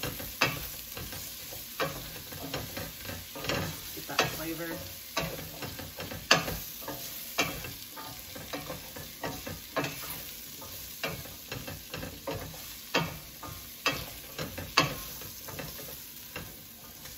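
Diced sweet potatoes sizzling in coconut oil in a stainless steel stockpot while a wooden spoon stirs them, scraping and knocking against the pot in irregular clicks every half second or so. The spoon is working loose bits stuck to the bottom of the pot.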